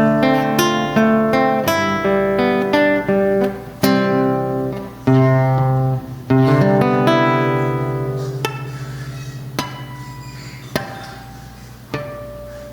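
Acoustic guitar playing the closing phrase of a song: a run of plucked notes and chords, then a final chord about six seconds in that rings on and slowly fades out.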